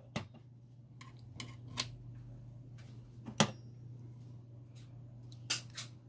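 Light plastic clicks and taps from handling a small opened wireless magnetic door contact sensor, with the sharpest about three and a half seconds in and two more near the end, over a low steady hum.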